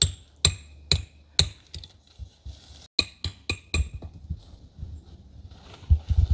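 Hammer driving a metal tent stake into hard sandy ground: sharp, ringing metallic clinks. There are four blows about half a second apart, a pause, then four quicker blows, and a couple of duller knocks near the end.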